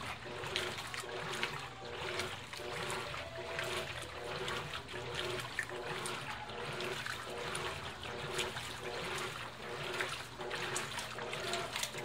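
Colormaq 15 kg top-loading washing machine agitating a load of jeans: water sloshing and splashing in the tub over a motor hum that swells and fades in a steady rhythm with each back-and-forth stroke of the agitator.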